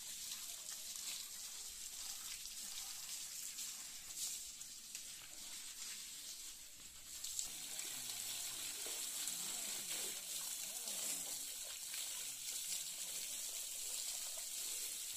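Water spraying onto a tractor as it is washed: a steady hiss that grows louder about seven seconds in.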